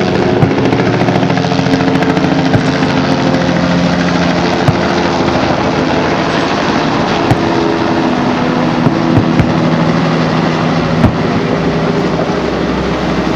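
A loud, steady rumble with a low drone whose pitch drifts, with sharp pops now and then from distant fireworks bursting.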